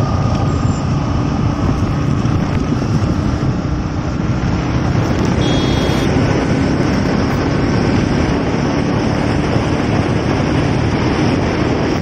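Steady wind and road noise from a moving motorcycle, heavy in the low range and unbroken throughout.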